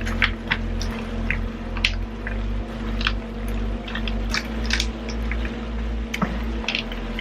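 Utensil stirring a skillet full of raw rotini pasta, chicken, spinach, diced tomatoes and seasoned vegetables: irregular wet squishing with scraping clicks against the pan.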